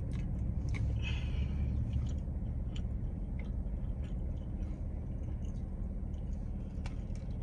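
Chewing and wet mouth sounds of someone eating chicken wings: scattered soft clicks and smacks, with a brief finger-licking smack about a second in. Under it, a steady low rumble from the car.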